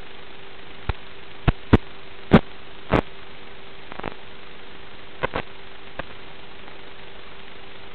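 Steady static hiss with a low hum from an analog FPV video receiver, broken by about ten sharp crackles and pops in the first six seconds, the loudest about two and a half seconds in, where the radio signal breaks up.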